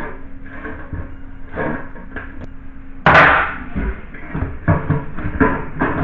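Knocking and clattering of hand work on a wall, with one loud, sharp knock about three seconds in followed by a run of quicker knocks.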